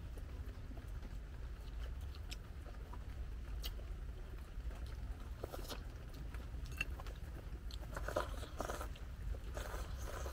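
Two people eating chicken porridge: soft chewing and slurping, with light clicks from chopsticks and bowls, busier near the end, over a low steady hum.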